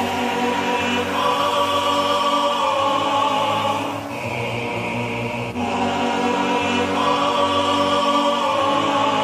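Background music of sustained choir-like chords that shift every few seconds.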